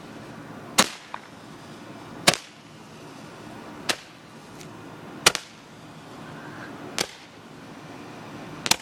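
Fireworks going off: six loud, sharp pops about a second and a half apart, with a few fainter pops between them.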